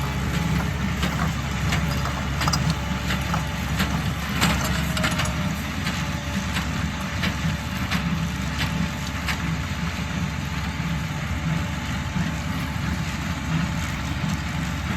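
Tractor engine running steadily while pulling a working small square hay baler, with repeated sharp knocks and clunks from the baler's mechanism over the drone.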